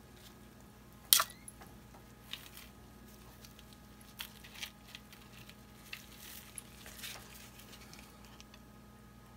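Handling noise from gloved hands working over a paint pour: one sharp, loud click about a second in, then several softer clicks and rustles, over a steady low hum.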